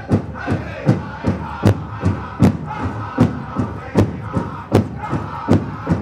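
Powwow drum group: a large bass drum struck in a steady, even beat, about two and a half strokes a second, with a group of singers' voices carried over it in Northern style.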